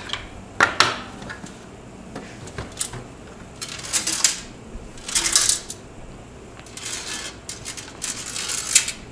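A loose screw, fallen out of the power supply, rattling and clinking around inside a metal computer case as the case is moved, in several short bursts with sharp clicks between them.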